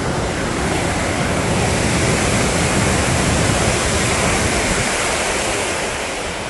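Steady rush of falling water, swelling louder for a few seconds in the middle.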